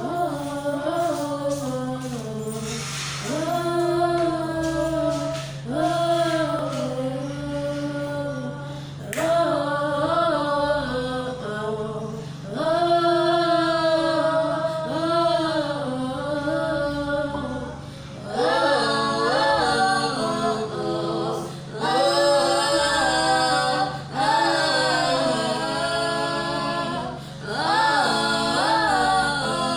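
Voices singing slow, held phrases a cappella, each phrase a few seconds long, over a steady low tone. About eighteen seconds in the singing grows fuller and brighter.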